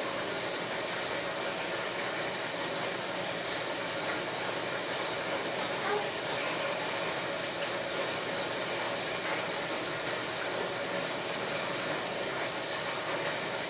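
Razor blade dragged lightly through thin plastic covering film along a wooden wing outline, cutting the film free: soft scratching with scattered small crackling ticks over a steady hiss.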